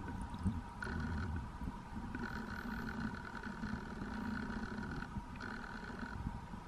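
Steady underwater hum of swimming-pool water heard through a submerged microphone, muffled, with a constant low rumble and a higher tone that comes and goes several times.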